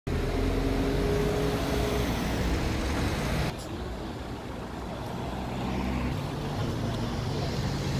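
Road traffic: cars driving past on a city street, a steady low engine hum and tyre noise. About three and a half seconds in, it drops suddenly to a quieter low traffic rumble.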